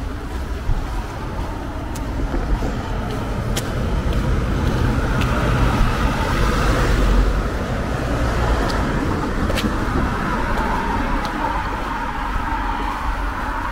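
Road traffic: cars and a van driving past on a town street, the passing noise swelling to its loudest about halfway through. A few faint sharp ticks sound here and there.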